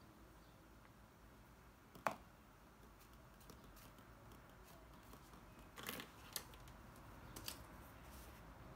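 Pens being handled on a desk: a single sharp tap about two seconds in as a pen is set down on the notebook, then a cluster of small clicks and taps around six seconds in and again near seven and a half as another pen is picked up. Otherwise near silence: faint room tone.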